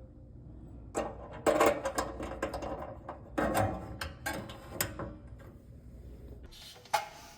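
Irregular mechanical clicks and clatters, loudest about one and a half seconds in and again about three and a half seconds in.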